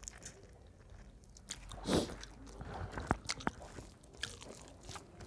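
A person chewing and biting food close to the microphone, with small wet clicks and smacks and one louder bite about two seconds in.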